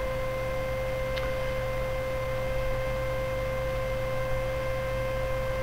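Steady electrical hum with a constant high whine over faint background hiss, and one faint click about a second in.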